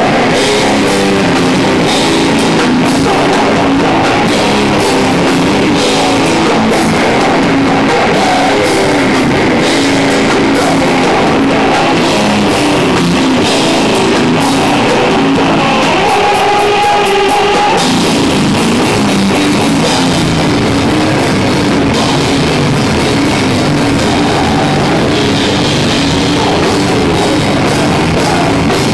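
Live hardcore/doom band playing loud: distorted electric guitar over a full drum kit with crashing cymbals. About sixteen seconds in the low end drops away briefly under one held note, then the full band comes back in.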